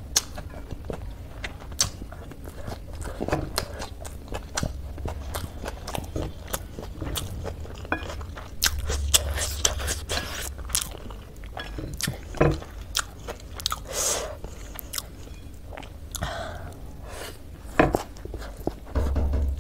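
Close-miked chewing and slurping of stir-fried chow mein noodles, with many short, sharp wet mouth clicks and smacks.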